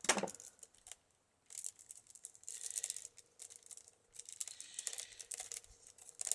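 A bird cherry rod being worked into the weave of a basket: a sharp knock at the start, then two long stretches of dry crackling and rustling as the rod is pushed and tucked through the weave.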